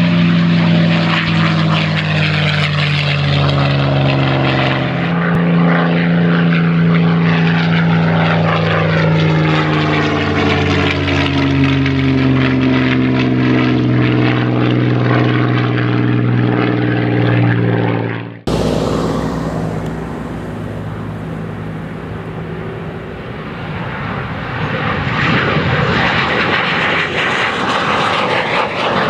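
Piston-engined warbirds, a P-51 Mustang and a Spitfire, flying low past with a loud engine note whose pitch slides downward as they go by. About 18 seconds in it cuts abruptly to the even roar of an F-86 Sabre jet passing, swelling again near the end.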